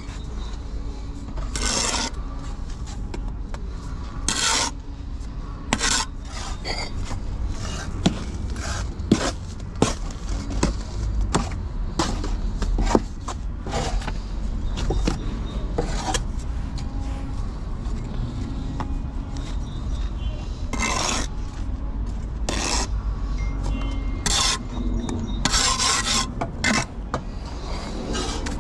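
Bricklaying trowel scraping and cutting mortar, with sharp taps and knocks as bricks are laid, coming in irregular succession. There are several longer scrapes and many short clicks.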